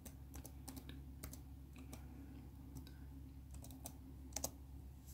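Light, irregular key taps on an HP Envy 17 laptop keyboard while a Wi-Fi network password is typed in, with a slightly louder pair of taps about four and a half seconds in.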